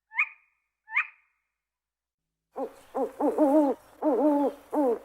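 Owl calls: two short, sharp, high calls about a second apart, then after a pause a run of lower hoots in quick succession, some held and wavering in pitch.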